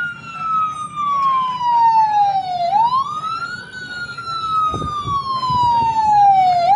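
Patrol pickup's siren on a slow wail: the pitch falls slowly, sweeps quickly back up about three seconds in, then falls slowly again. A low engine rumble runs underneath.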